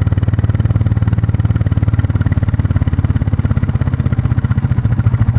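Royal Enfield Classic 350's single-cylinder four-stroke engine and exhaust running steadily while riding, its evenly spaced exhaust pulses clearly separate, growing a little louder near the end.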